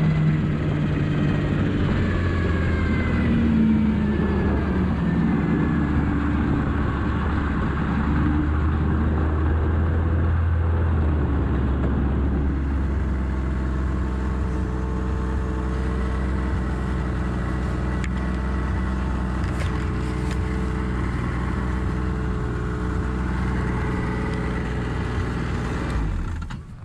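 Yamaha four-stroke snowmobile engine running, its pitch shifting as the sled slows over the first several seconds, then idling steadily. The engine cuts off near the end.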